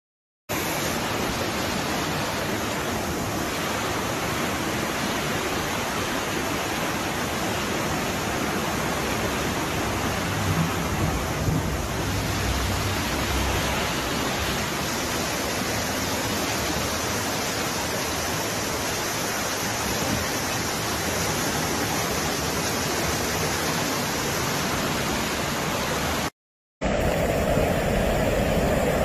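Floodwater rushing steadily as a dense, even hiss, with a brief low rumble about eleven seconds in. After a short cutout near the end, a louder rush of a muddy flash-flood torrent takes over.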